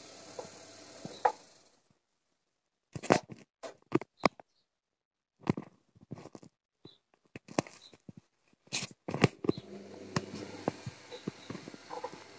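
Gorenje WA 50050 front-loading washing machine washing a load: the drum motor hums while the laundry tumbles, stops about two seconds in, and the drum rests while scattered sharp clicks and knocks come from the machine. The motor starts again with its hum about ten seconds in, the drum turning and clicking once more.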